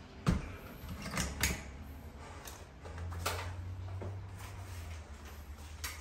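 Plastic smoke alarm being twisted onto its ceiling mounting base: a handful of sharp clicks and scrapes, the loudest just after the start. A low hum runs under it for about two seconds in the middle.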